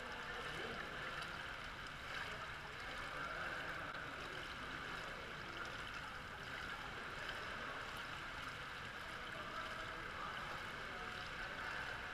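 Swimming pool water lapping and splashing in a steady hiss, with faint splashes from a swimmer's front crawl strokes.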